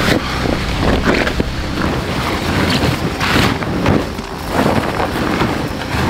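Polycotton canvas of a tent-Mark Design Circus TC tent rustling and flapping as it is pulled from its bag and spread out, a string of rough swishes.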